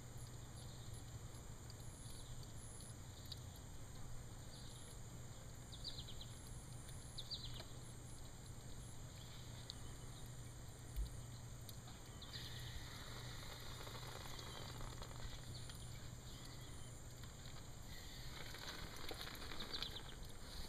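Faint outdoor ambience: a low steady hum with scattered faint high chirps and ticks, and a single soft knock about eleven seconds in.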